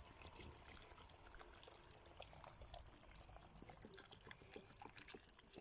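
Faint trickle of water poured from a large plastic bottle into a bucket of cucumbers and dill, with small drips and splashes.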